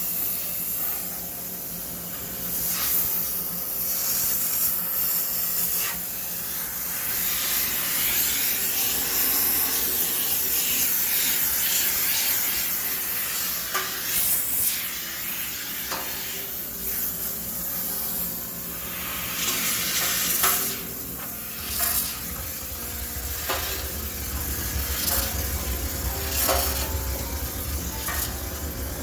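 High-pressure steam cleaner hissing as its jet sprays into a front-loading washing machine to sterilise it, swelling and easing in spurts. A low rumble joins about two-thirds of the way through.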